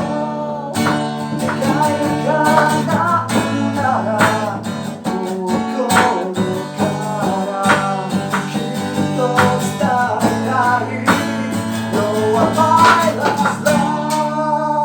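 A rock band playing live: strummed guitar chords, drum hits and a sung melody.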